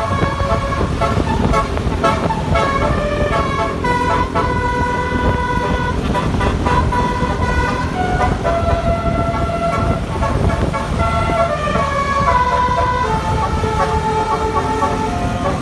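Multi-tone 'telolet' horn playing a tune of held notes that step up and down in pitch, over a steady low rumble.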